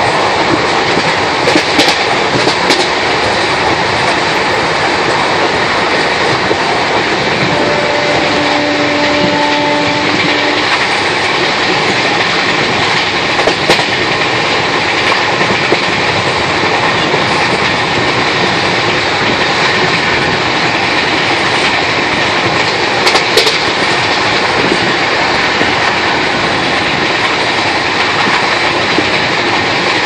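Passenger train running steadily, heard from inside a carriage: a dense rumble and rush of wheels on rails with occasional sharp clicks over rail joints. A horn sounds briefly about eight seconds in.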